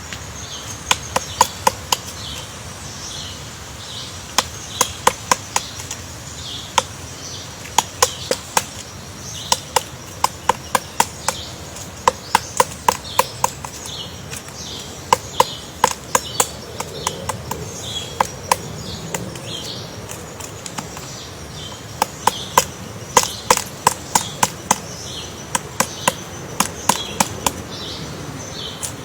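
Woodpecker pecking into wood: sharp, dry taps in irregular bursts of a few strikes, with short pauses between bursts. Steady high chirps or insect calls run beneath.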